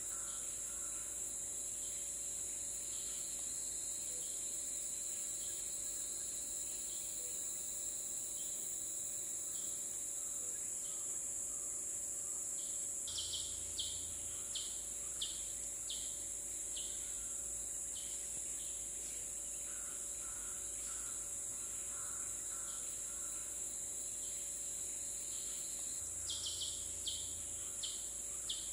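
Tropical forest insect chorus: a steady high-pitched drone with a fainter lower steady tone beneath it. Twice, a run of short sharp chirps cuts in, about halfway through and again near the end.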